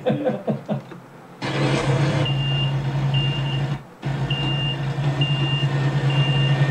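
Iveco tractor unit's diesel engine running steadily as it backs off a low-loader trailer, with its reversing alarm beeping about once a second.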